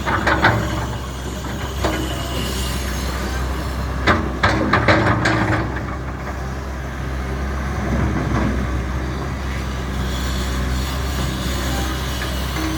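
Backhoe's diesel engine running steadily, with a cluster of sharp clanks about four to five seconds in.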